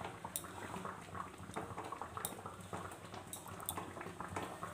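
Flour-coated chicken pieces frying in hot oil in a pan: a steady sizzle with scattered sharp crackles and pops as more pieces go in.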